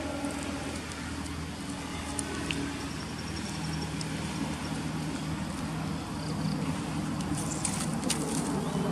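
An engine running steadily, a low hum that grows a little louder over the last few seconds, with a few faint clicks about seven to eight seconds in.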